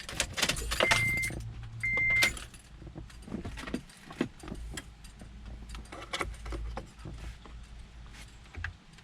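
Keys jangling with scattered clicks and taps, and two short high electronic beeps about a second apart near the start.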